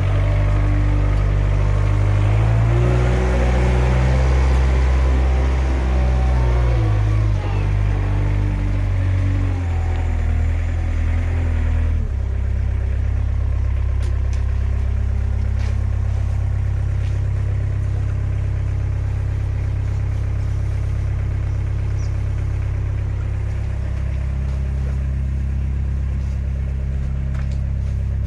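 Engine running with a steady low hum. The pitch shifts in steps for the first dozen seconds, then the sound changes abruptly to an even, unchanging run for the rest.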